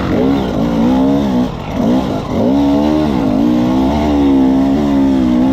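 Dirt bike engine riding hard, its revs rising and falling over and over as the throttle is rolled off and opened again through the turns.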